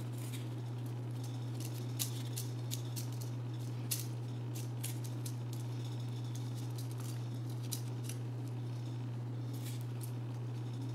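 Small crinkles and clicks of paper blossoms, wire stems and floral tape being handled and wrapped, scattered irregularly over a steady low hum.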